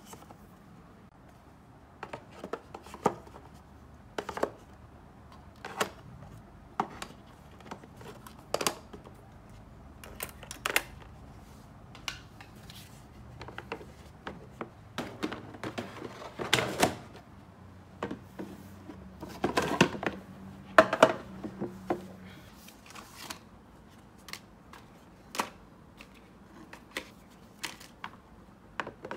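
Translucent plastic storage bins being handled and filled by hand: irregular clicks, taps and knocks of plastic and of the items dropped into them, with louder clusters of handling about halfway through.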